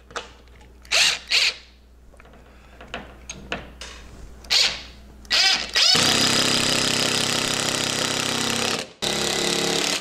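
Cordless drill/driver running steadily for about three seconds as it drives a screw through a wire shelf's mounting tab into a wall stud. It stops and runs again just before the end. Before it come a few sharp clicks and knocks of the wire shelf and tab being handled into place.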